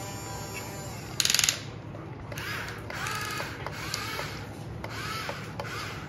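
Small electric motors and plastic gearboxes of toy RC construction vehicles whirring in short spurts, each whine rising and falling in pitch as a movement starts and stops. Just over a second in there is a brief, loud buzzing gear rattle.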